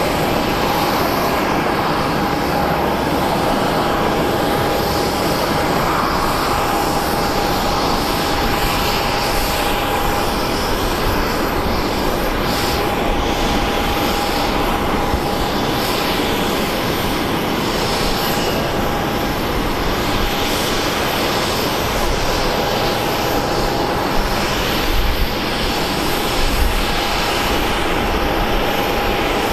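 Aircraft engine noise: a loud, even rush with a steady high whine running through it.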